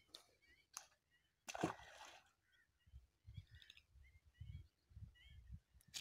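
Near silence at the water's edge: a short sharp noise about one and a half seconds in, a few faint high chirps, and an uneven low rumble in the second half.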